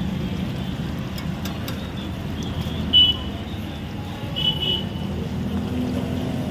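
Steady low street-traffic rumble mixed with hot oil sizzling in a large kadai as bondas deep-fry. Two short high-pitched sounds cut through, about three seconds in and again about a second and a half later.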